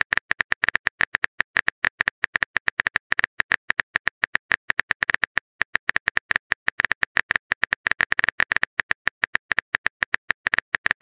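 Keyboard typing sound effect: rapid clicks, about ten a second, with a short pause about five seconds in.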